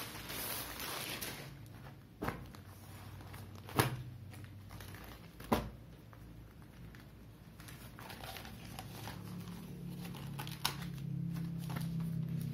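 Thin plastic courier bags crinkling as they are handled, with a few sharp clicks. A low steady hum comes in during the second half.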